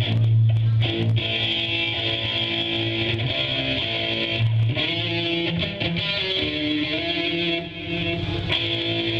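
Electric guitar played through a stage amplifier during a sound check, holding long sustained notes one after another.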